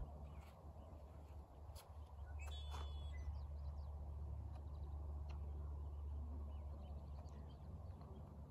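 Outdoor ambience: a steady low rumble, with birds chirping, the clearest call about two and a half seconds in and fainter chirps later.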